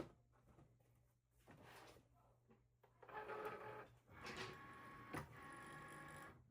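Cricut cutting machine's motors running faintly, starting about three seconds in and settling into a steady whine in the second half, as the machine works the printable magnet sheet.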